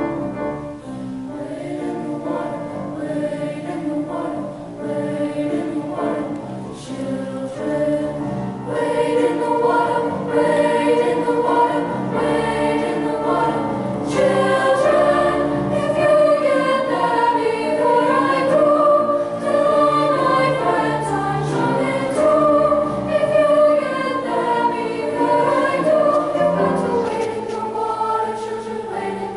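School choir singing a piece in several parts, with the voices swelling louder about nine seconds in.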